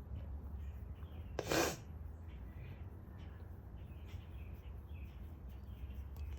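Faint small clicks of hand tools and small parts being handled over a steady low hum, with one short, loud breathy rush about a second and a half in.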